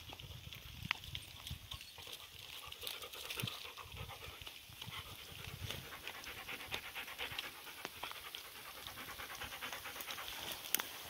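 A dog panting steadily close to the microphone, with a few sharp ticks and scrapes of a knife blade scraping hardened pine resin off a tree trunk onto a piece of bark.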